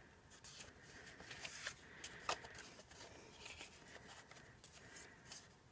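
Faint rustling and soft ticks of stiff printed card stock being flipped and shifted by hand, with one sharper tick a little past two seconds in.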